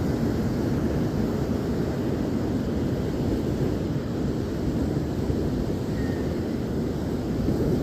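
Ocean surf: a steady low rush of waves washing on the shore, swelling slightly now and then.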